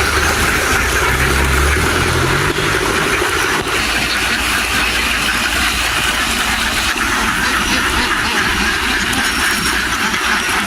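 An engine running steadily, with a continuous dense hiss-like din over it.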